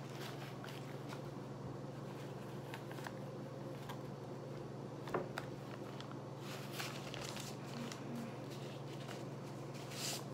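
Paper dollar bills rustling and crinkling as a stack is counted by hand, in short, irregular soft crinkles, over a steady low hum.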